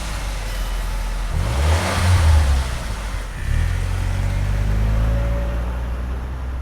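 Car engine running and being revved: the pitch rises about one and a half seconds in and drops back, then climbs again and holds steady.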